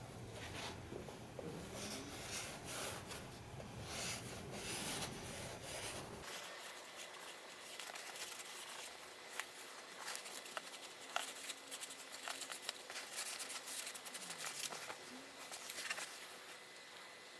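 Leather liner of a WWI pickelhaube being handled and tucked into the helmet shell, rubbing and rustling with scattered small clicks and taps.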